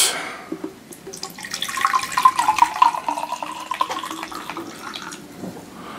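Water being poured into a clear P-trap, trickling and splashing for about four seconds as it fills the trap's bend and forms the water seal.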